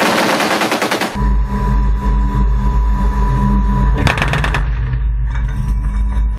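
K30 Biho's twin 30 mm autocannons firing: a rapid rattle of shots in the first second, then a heavy low rumble, with another quick burst of shots about four seconds in.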